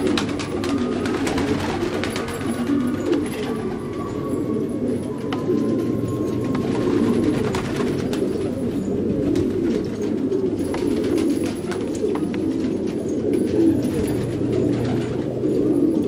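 A flock of fancy pigeons cooing together in a dense, continuous, overlapping chorus, with scattered sharp clicks throughout.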